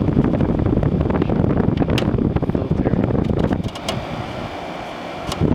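A small General Electric window air conditioner running steadily, compressor and fan both on, with its airflow buffeting the microphone. There are a few light clicks, and the low rumble eases briefly near the end.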